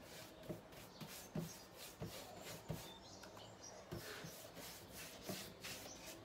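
Paintbrush bristles stroking liquid anti-woodworm treatment onto a bare wooden drawer: faint, repeated brush strokes, a little under two a second.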